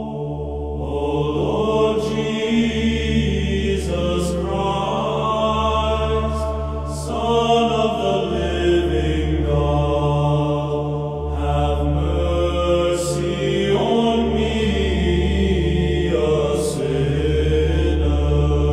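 Background music: slow, chant-like choral music over a steady low drone, the voices holding long notes and shifting pitch every second or two.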